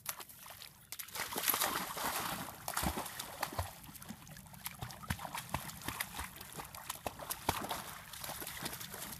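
A puppy splashing into a pond and paddling through the water, with irregular splashes and sloshing that are loudest about a second and a half in and then settle into steadier paddling.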